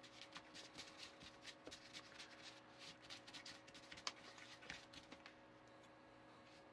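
Faint scraping and ticking of a small plastic spatula stirring crumbly cookie dough in a plastic mixing tray, the dough still half powder. The scraping stops about five seconds in.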